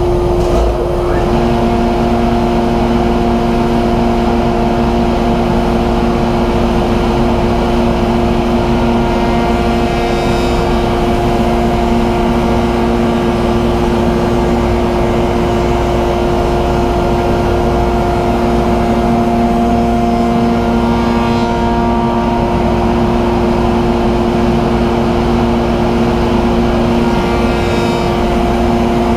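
Powermatic shaper running steadily with its dust collector while a raised-panel cutter shapes the edges of a door panel fed past it. The result is a constant machine hum with several steady tones.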